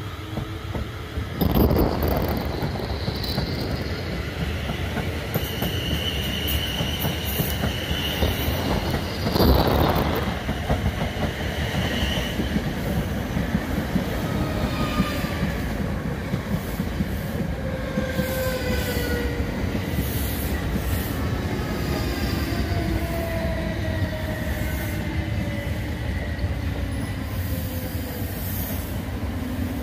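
Electric multiple-unit trains passing along the platform, mostly a Class 458 Juniper unit, with its wheels squealing in shifting high-pitched tones on the rails. There are two louder thumps, about a second and a half in and about ten seconds in.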